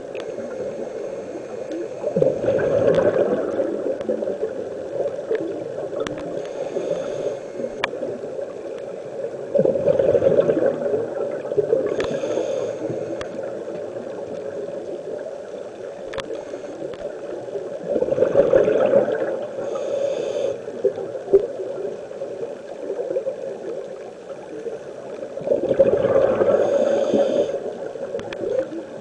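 Scuba diver breathing through a regulator: four loud gushes of exhaled bubbles about eight seconds apart, with fainter hisses of inhaled air between them, over a steady underwater hiss.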